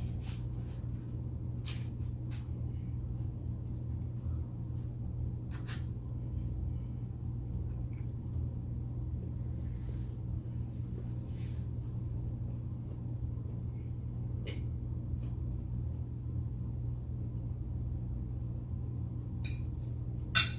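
Quiet eating sounds: scattered soft clicks and mouth noises from eating, with a sharper click near the end, over a steady low hum.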